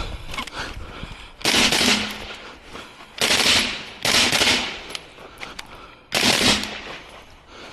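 Rifle fired four times at uneven intervals, the second and third shots close together, each shot a sharp report followed by a long echoing tail.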